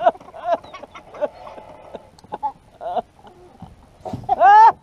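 Excited people's voices in short wordless cries and exclamations, ending with a loud, high, rising cry near the end.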